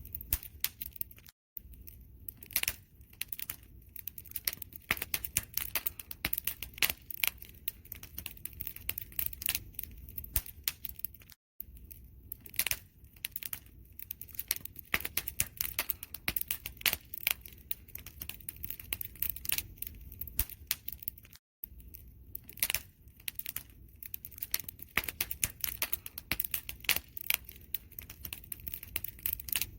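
Campfire crackling, with dense irregular pops and snaps over a low rumble of flames. The sound cuts out for a split second about every ten seconds, three times.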